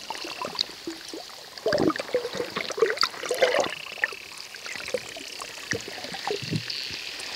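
Underwater hydrophone recording from the sea played back over loudspeakers: a dense crackle of clicks with faint drawn-out high tones and a buzzing quality. The presenters believe it is dolphins communicating.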